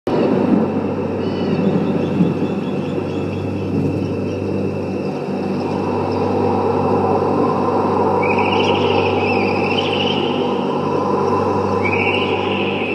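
Steady low rumble with a hum in a large gymnasium. A high wavering tone comes in twice in the second half.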